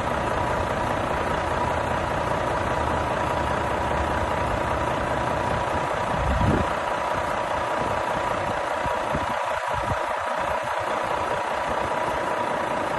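Renault T480 truck's 13-litre straight-six diesel idling steadily, with one brief louder surge about six and a half seconds in.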